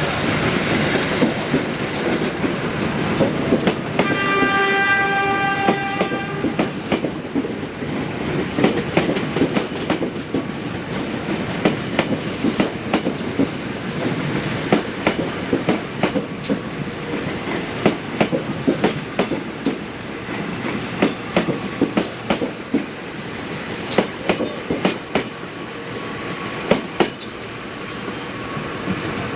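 Bima passenger train running on the rails, its wheels clacking over rail joints in a continuous uneven run of sharp clicks over a steady rumble. A train horn sounds for about two seconds around four seconds in.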